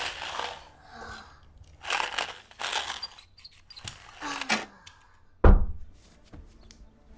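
Toy race cars whizzing around a plastic track in several short passes, each about half a second, followed by one deep thump about five and a half seconds in.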